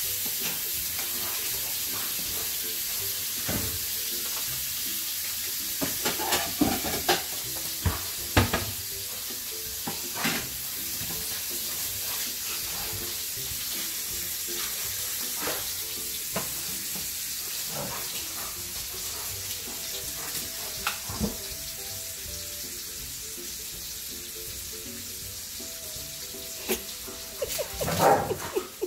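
Steak sizzling steadily in butter in a frying pan as it poaches, with a few sharp clicks and knocks on top, loudest about six to eight seconds in and again near the end.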